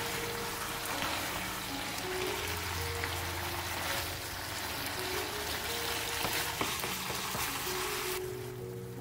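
Ground pork and tofu sauce sizzling and bubbling in a nonstick pan as it is stirred with a wooden spatula, with small crackles and pops. The sizzle cuts off sharply about eight seconds in. Light background music with held notes plays underneath.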